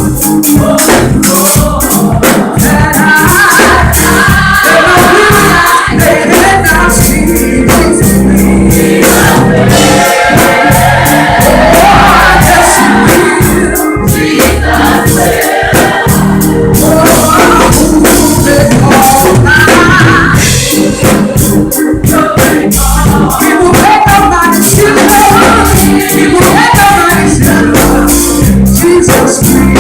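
Live gospel music: a vocal group sings with a full band behind it, and drums strike steadily throughout.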